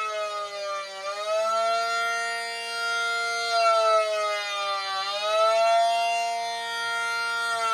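Miniature ACA P-50 civil defense siren sounding continuously, its tone sagging in pitch and swinging back up about every four seconds: the wavering pattern of an attack signal.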